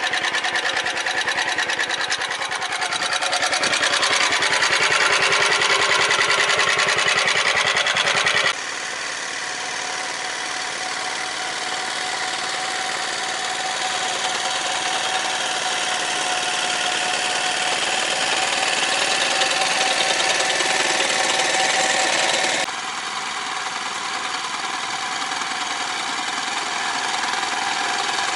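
Small engine of a walk-behind tractor (motoblock) running steadily while it works a potato digger. Close up at first, then it changes abruptly to a more distant sound about eight seconds in, and changes abruptly again near the end.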